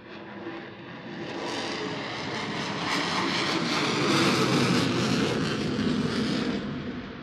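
Sukhoi Su-35 twin-engine jet fighter flying past in a display, its engine noise swelling to a peak about four seconds in and then fading away.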